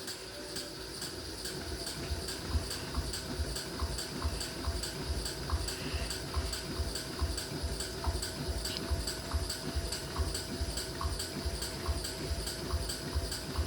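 Whirlpool washing machine running with a steady hum and a rhythmic knocking, about two or three beats a second, with some water sound: the weird noise the owner is showing.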